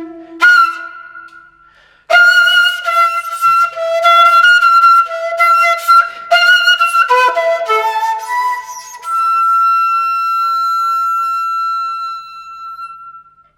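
A 1.8-shaku Senshu Shakuhachi Kobo Original Type A shakuhachi being played: after a short pause, a phrase of loud notes with sharp attacks. It ends on one long high note, held for about four seconds and fading out near the end.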